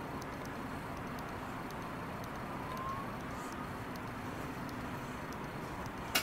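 Steady hiss of background noise, with a brief faint rising tone about three seconds in and one sharp click at the very end.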